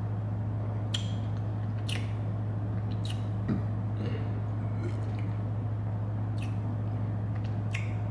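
A person sipping a mango drink from a glass bottle: a handful of short, wet sips, swallows and lip smacks, spaced a second or more apart, over a steady low hum.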